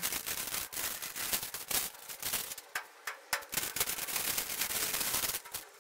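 Brown masking paper crackling and rustling as it is pulled out of metal lockers and crumpled, in a dense run of irregular sharp crackles.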